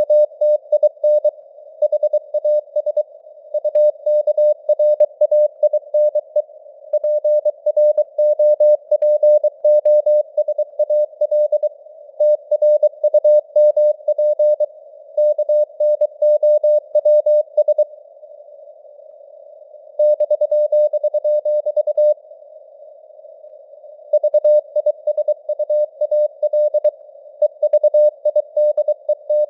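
Morse code (CW) sent at 23 words per minute as a single mid-pitched tone keyed in rapid dots and dashes, heard through simulated receiver hiss with the signal strength fading up and down. Twice the keying stops for a second or two and only the hiss is left.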